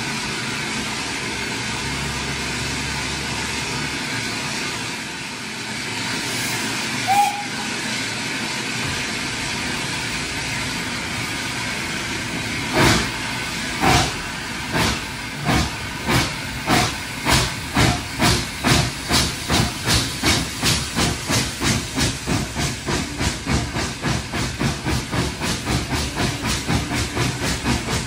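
Steam locomotive, an Austerity 0-6-0 saddle tank, hissing steadily, then starting to work: its exhaust beats begin about halfway through, slow at first and quickening to three or four a second as the train pulls away. A brief whistle-like note sounds about seven seconds in. Heard from an open carriage window behind the engine.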